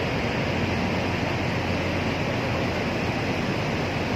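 Steady rushing noise with a constant low hum underneath, typical of a ship's deck with machinery running and wind on the microphone.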